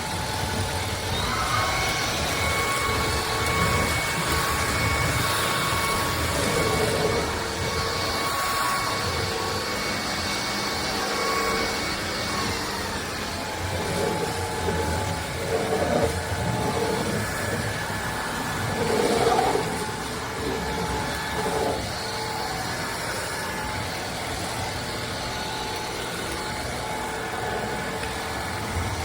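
Vacuum cleaner running steadily, its motor whine holding several tones; a higher whine rises in about a second in and glides away around halfway through.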